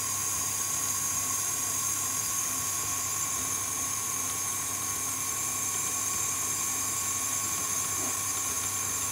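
KitchenAid Artisan stand mixer running at a steady speed, its motor giving a constant high whine as the beater mixes thick cake batter in the steel bowl.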